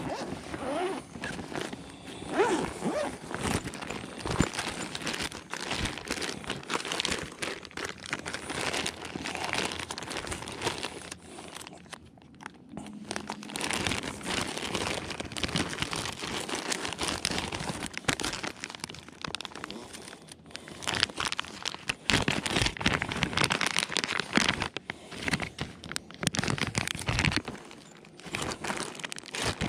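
A clear plastic bag and soft-plastic bait packs crinkling and rustling as hands rummage through them, in irregular crackly handling noise.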